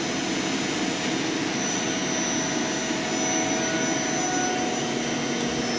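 CNC lathe running: the spindle spinning the workpiece while the tool cuts, a steady whir with a high whine. The turning insert has no chip breaker, so the chip comes off in long unbroken strings.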